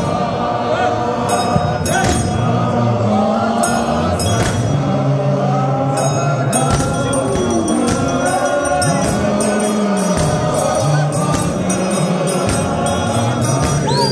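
A large group of men singing a church chorus together, with sharp percussive beats running under the voices that come more often in the second half.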